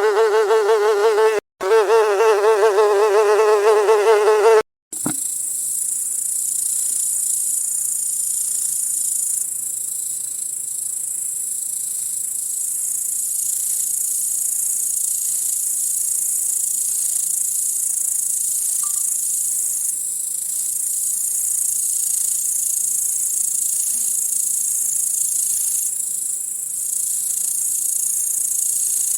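A loud buzz with a wobbling pitch, broken once by a short gap, stops suddenly about five seconds in. It gives way to a dense, steady, very high-pitched chorus of crickets chirping.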